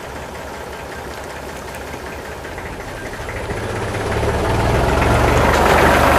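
A steady engine-like running sound with an even pulse, swelling louder and fuller from about halfway through.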